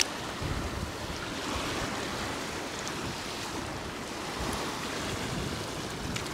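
Strong storm wind buffeting the microphone over steady surf breaking on the shore, with a brief click right at the start.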